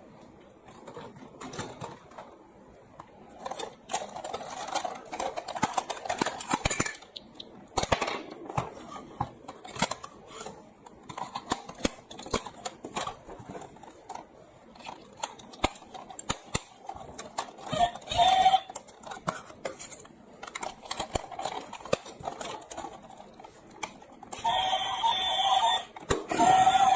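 Toy vehicles and plastic toy pieces being handled, with irregular clicks, taps and clattering knocks. Music comes back near the end.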